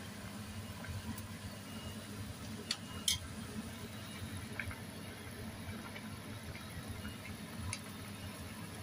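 Pot of pork nilaga broth simmering on the stove: a steady low bubbling rumble, with a few short sharp clicks about three seconds in and again near the end.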